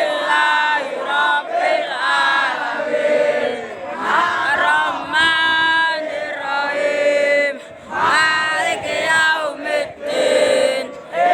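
Large crowd of supporters singing and chanting together in unison, loud and sustained, with brief breaks between phrases.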